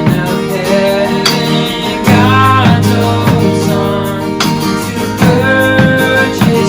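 Worship band music led by acoustic guitar, with held melody notes over the chords and a bass note coming in about two seconds in.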